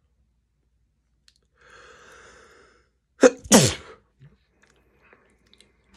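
A man sneezes once, loudly, about three seconds in, after a breathy in-breath.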